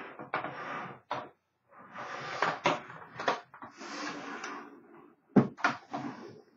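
Typewriter carrying case being handled: stretches of scraping and rubbing with several sharp clicks, the loudest a little over five seconds in.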